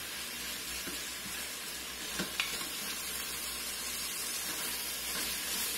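Butternut squash cubes and bacon sizzling in the hot stainless inner pot of an Instant Pot, a steady frying hiss, while a spatula stirs them, with a few light scrapes and knocks against the pot around the second second.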